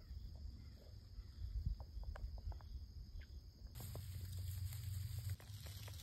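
Woodland ambience recorded on a phone: low wind rumble on the microphone, a steady high-pitched insect hum, and scattered light crackles and rustles like footsteps in dry leaves. The background changes abruptly a little before four seconds in.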